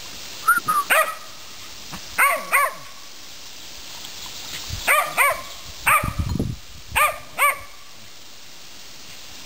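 Small dog barking at a deer in short, high yaps, about ten in all, mostly in quick pairs, as territorial warning barks.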